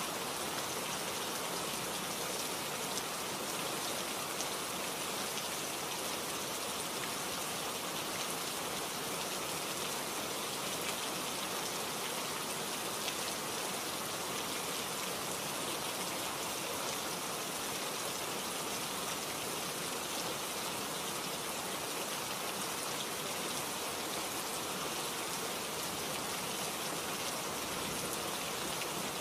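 Steady, even hiss like falling rain, unchanging throughout.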